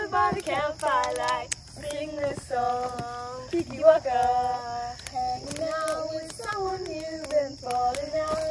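Children singing a tribal-style (Adivasi) folk song together, a chant-like melody of held notes.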